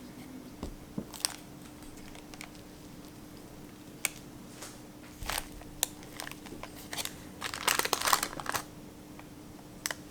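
Crinkly wrapping being handled and peeled, with scattered light clicks and short rustles and a denser crinkling burst about eight seconds in.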